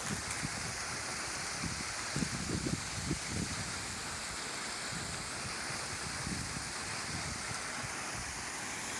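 Steady rushing of a small waterfall.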